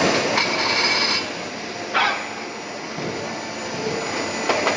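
Dry ice block production line running: a steady machine noise with a hiss that stops after about a second, and sharp clanks about two seconds in and near the end.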